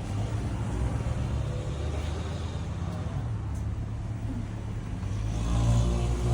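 An engine running steadily with a low hum, growing louder about five and a half seconds in.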